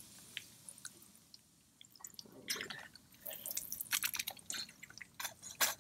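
Baking soda and water solution poured from a bottle onto corroded lead-acid battery terminals. Quiet with a few small drips at first, then from about two seconds in an irregular run of splashing and dribbling, with one louder splash near the end.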